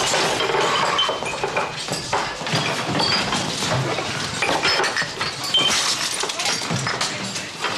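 Commotion of a crowd scuffle: overlapping shouts and yells mixed with clinks and knocks as people are pushed and grabbed.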